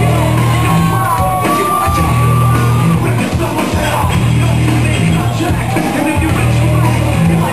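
Rock entrance music with a singing voice over a heavy, steady bass, with one long held high note about half a second in.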